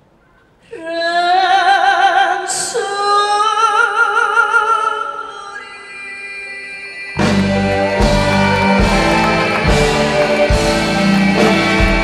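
A woman sings long held notes with wide vibrato in a Korean trot ballad, stepping down in pitch about two seconds in and then fading. About seven seconds in, the live band with drums and bass comes in loudly.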